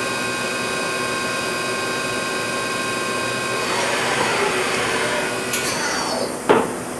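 Daewoo DMV-500 vertical machining center running a sample program through its orientation and tool-change cycle: a steady, high-pitched whine of the spindle and drives, a rising mechanical rush after about four seconds, and one sharp clunk near the end.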